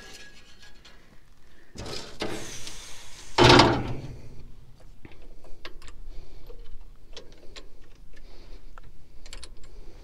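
Metallic handling noises in a Caterpillar D11 bulldozer's engine bay: one loud clunk about three and a half seconds in, then a run of small sharp clicks and rattles as the battery isolator switches are handled.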